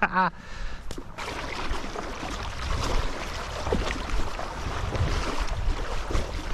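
Wind buffeting a GoPro's furry windscreen, a low rumble, over a steady rush of flowing stream water; the noise swells about a second in.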